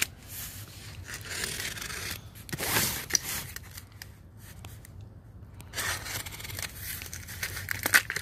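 Cardboard and plastic packaging being torn and handled as boxes are unpacked: tearing, scraping and rustling in bursts, with a lull in the middle.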